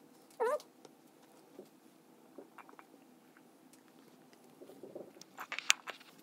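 A cat's short meow about half a second in, then faint scattered taps and a cluster of sharp clicks near the end.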